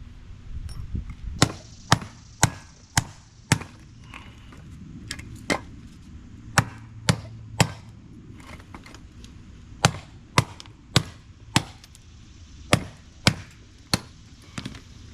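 Sledgehammer blows on a scrapped appliance part: sharp strikes in runs of three to five, about two a second, with short pauses between runs.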